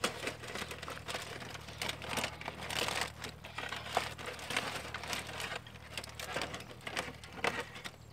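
Aluminium foil crinkling and rustling in irregular crackles as tongs reach into a foil-wrapped rack of baby back ribs and lift it out.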